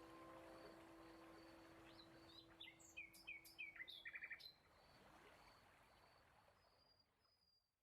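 Faint birdsong: a run of short, quick chirps about two to four seconds in, over the last notes of a harp chord dying away and a soft outdoor background, all fading out near the end.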